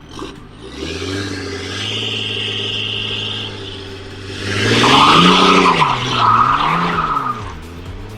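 Car engine running steadily, then revved twice with the pitch rising and falling each time, with tyre squeal over the revs.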